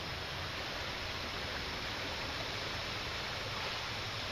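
Floodwater rushing across and beside a road: a steady, even rushing noise with a low rumble underneath.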